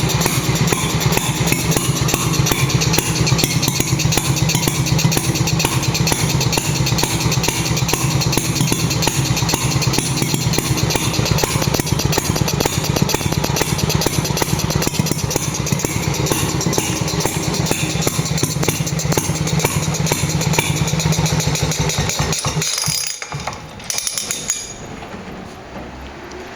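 Background music with a steady drum beat, cutting out near the end.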